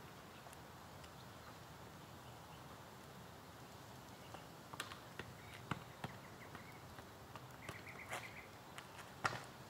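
Faint scattered taps and scuffs of a soccer ball being dribbled and kicked on an asphalt street, over a low outdoor background. Near the end a bird gives a short quick trill.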